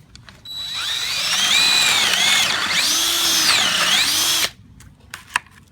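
Power drill boring a hinge cup hole with a Forstner bit through the Kreg concealed hinge jig into a cabinet door. The motor whine climbs as it starts, dips and recovers as the bit bites, and cuts off suddenly after about four seconds, followed by a few light clicks.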